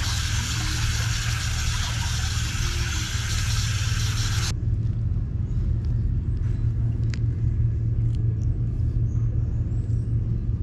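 Water running from an outdoor tap into a clay bowl, a steady hiss that stops abruptly about four seconds in. A steady low rumble runs underneath and continues after it.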